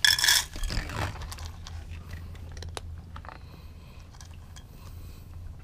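A domestic cat crunching dry kibble from a bowl: a run of faint, irregular crunches and ticks. A short, loud scuffing noise comes right at the start.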